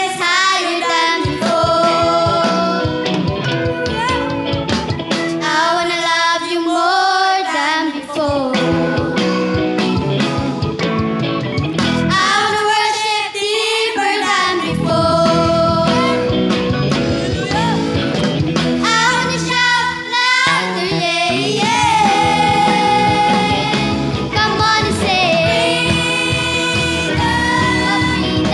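Children's choir singing a song in phrases, with steady instrumental tones beneath the voices.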